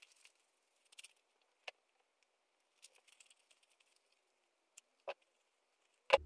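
Faint rustling of cotton and minky fabric as a sewn pouch is turned right side out by hand, with a few light clicks and one sharper click near the end.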